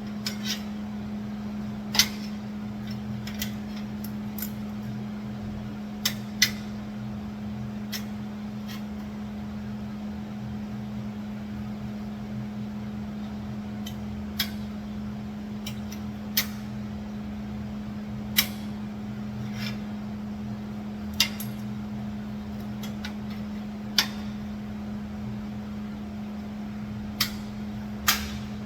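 Scattered sharp metallic clinks and taps, a dozen or so spread irregularly, over a steady low hum.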